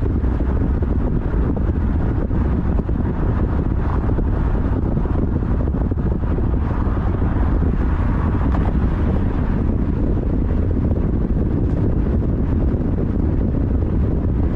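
Steady wind buffeting the microphone over the road noise of a vehicle travelling at speed.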